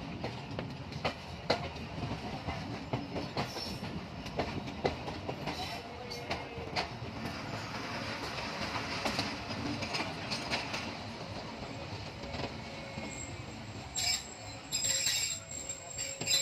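Passenger train coach rolling slowly into a station: a steady rumble of the running gear with irregular sharp clicks of the wheels over rail joints. Near the end there is a louder stretch with a thin high squeal.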